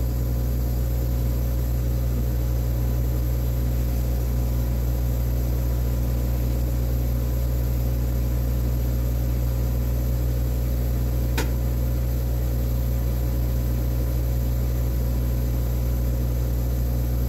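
Steady low machine hum of a Siemens Dimension EXL 200 chemistry analyzer running, with a few faint steady tones over it. There is a single short click about eleven seconds in.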